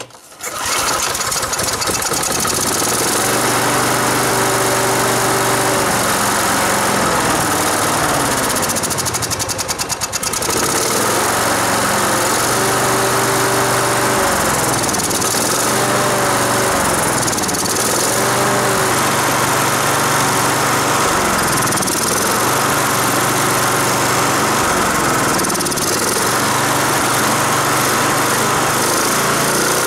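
Briggs & Stratton 550-series 158cc single-cylinder lawn mower engine starting about half a second in, then running at speed with its air cleaner removed. From about a quarter of the way through, its note swells up and falls back every second or two, with a brief drop around a third of the way in.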